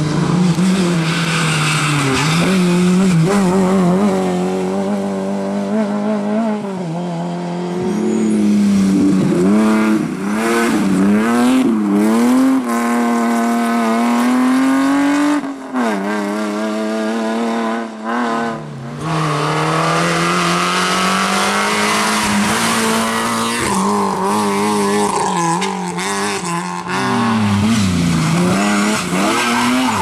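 Rally cars' engines revving hard as they pass one after another on a stage, their pitch rising through each gear and dropping sharply at each lift or gear change.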